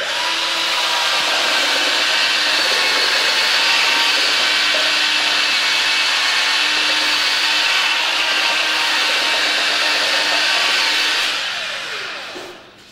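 Cordless drill spinning a sanding disc against a stone-inlaid wooden bowl, running steadily, then winding down near the end as the trigger is let go and the disc comes off the work.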